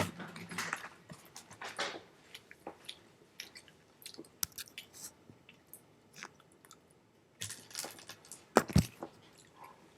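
Chewing and crunching of pretzel Goldfish crackers close to the microphone: irregular crisp crackles, with two louder crunches close together near the end.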